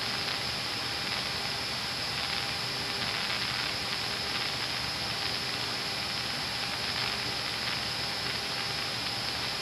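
Steady hiss with a few faint steady hum tones: C-130 cockpit noise in flight, heard through the crew intercom.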